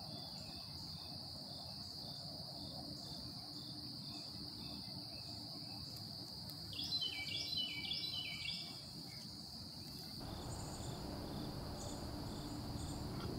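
A steady high-pitched insect chorus chirring in the woods, with a short run of chirping calls about seven seconds in.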